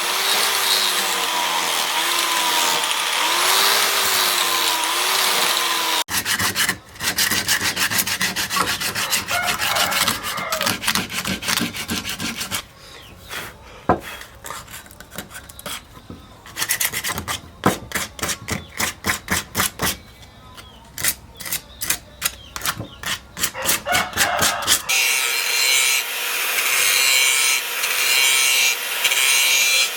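Rapid back-and-forth rasping strokes of a hand tool working the knife, fast at first and then in separate strokes a few a second. This comes between edited stretches of a steady rasping noise with a wavering hum: one in the first six seconds, and another starting suddenly near the end.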